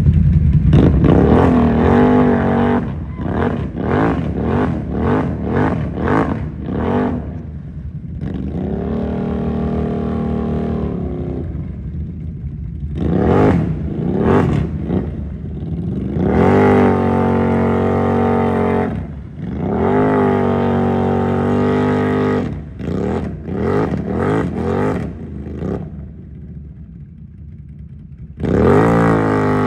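Can-Am Renegade ATV engine revving hard in repeated throttle blips and longer pulls as the quad wades through a deep water-filled mud hole, the pitch climbing and dropping again and again. It eases off briefly near the end, then revs up again in the last second or so.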